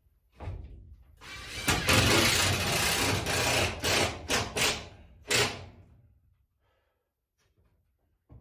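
Cordless drill running under load at the top corner of a timber-framed wall mirror being fixed in place. It runs in one long burst of about two and a half seconds, then three or four short bursts.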